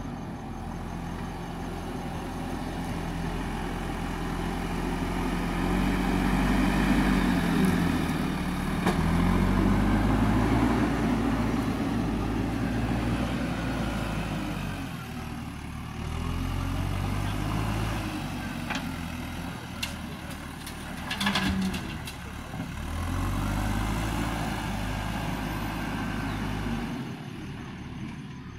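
JCB backhoe loader's diesel engine working, revving up and easing off again and again as the machine scoops and carries soil in its front bucket. It is loudest about a quarter of the way in, with a brief rattling clatter about two-thirds through.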